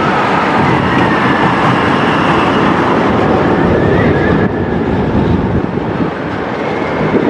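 Steel roller coaster train running along its track close by: a loud, steady noise with wheel squeal tones that glide up and down, easing off somewhat about four and a half seconds in.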